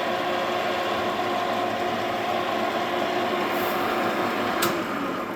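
Takisawa Max 800 Deluxe gear-head lathe, driven by its 5 HP three-phase motor, running steadily with a constant whine from its headstock gears while the carriage power-feeds toward the headstock. A single sharp click comes near the end.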